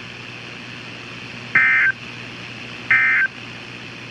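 NOAA Weather Radio end-of-message SAME (EAS) data tones: two short bursts of chirping digital data tones about a second and a half apart, marking the end of the warning broadcast. A steady low hiss and hum runs between them.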